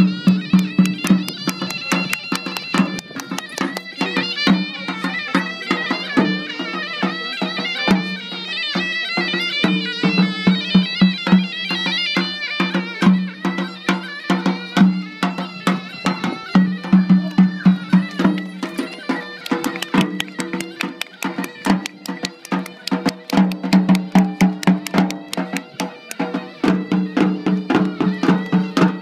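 Traditional folk music: a wind instrument plays a wavering melody over a steady low note, with fast, regular drumbeats throughout.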